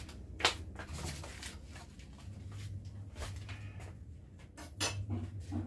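Scattered knocks and clicks of objects being handled and set down, the sharpest about half a second in and another cluster near the end, over a low rumble.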